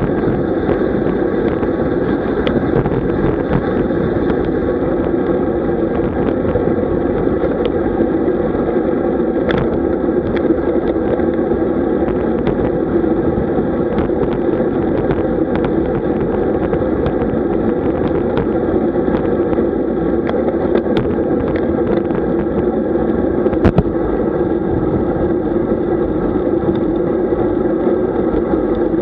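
Steady wind rush and road noise picked up by a camera riding on a road bike, with scattered sharp clicks and knocks, the loudest about 23 seconds in.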